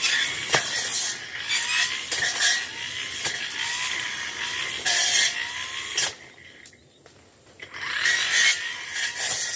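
Tanzu petrol brush cutter running and slashing through thick brush, with rough bursts of noise as the line or blade hits the growth. About six seconds in the sound drops away for under two seconds, then the cutting starts again.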